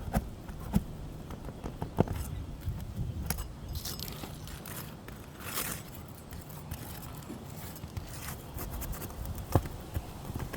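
Roofer's hand tools prying nails out of stiff, aged asphalt shingles: scattered sharp metal clicks and taps with a brief scrape near the middle, over a steady low rumble.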